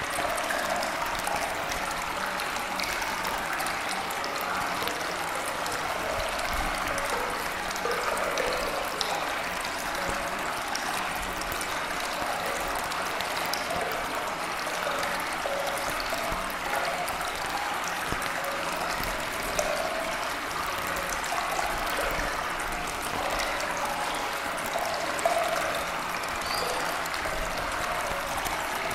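Steady running-water sound, a continuous trickling stream.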